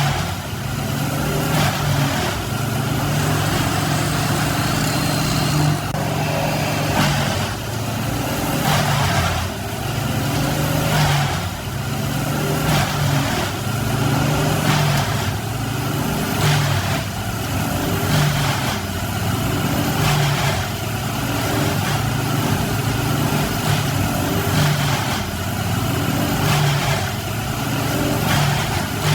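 A heavy engine running under load, surging in a steady rhythm about every one and a half seconds.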